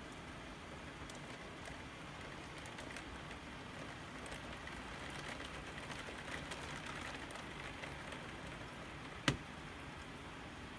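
Steady rain hiss with scattered drop ticks, swelling a little in the middle. About nine seconds in comes a single short, sharp crack, the loudest thing, with no rumble after it.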